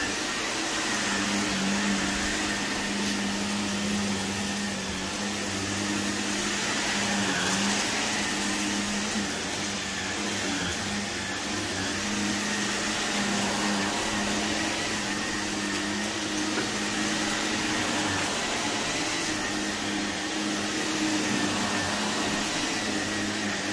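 Shark upright vacuum cleaner running on carpet: a steady motor hum under the rushing air of its suction as it is pushed over the pile.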